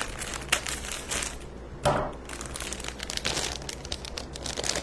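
Clear plastic bag of craft moss crinkling as it is snipped open with scissors and then handled, with a louder rustle about two seconds in.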